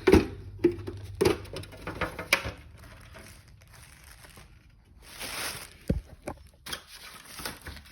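Handling noise from an old alarm control panel being opened and looked over: scattered clicks and knocks with some rustling. A brief rustle comes about five seconds in, then a dull thump.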